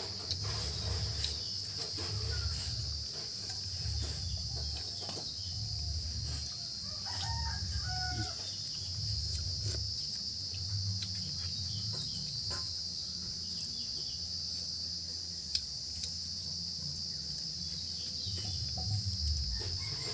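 Chickens clucking with a rooster crowing, the clearest calls about seven to eight seconds in, over a steady high-pitched drone and a low rumble.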